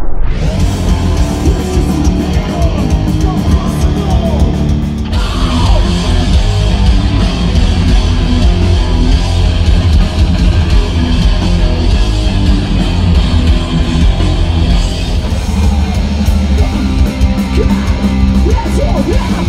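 Loud heavy music: distorted electric guitars over pounding drums, hardcore or metal in style. The sound changes abruptly about five seconds in, as at a cut.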